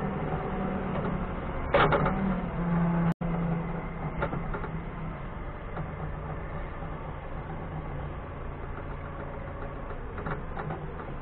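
Doosan 4.5-ton forklift engine running steadily, its note settling slightly lower about two seconds in. A few short clunks sound about two, four and ten seconds in, the first the loudest.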